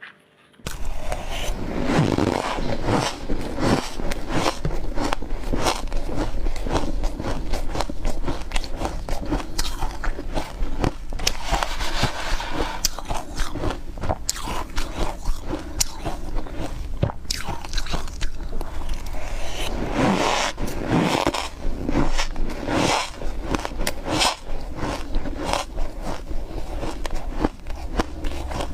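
Close-up crunching of someone biting and chewing big chunks of freezer frost, a dense, irregular run of crisp icy crackles.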